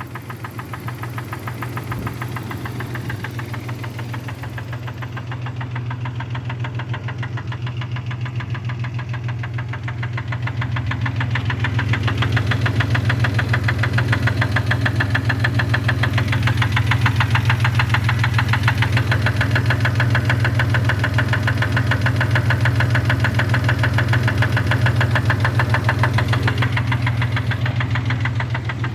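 Engine running with a rapid, rhythmic knock over its steady hum, growing louder a little over a third of the way in and easing back near the end. The owner asks whether the knock is a rod knock.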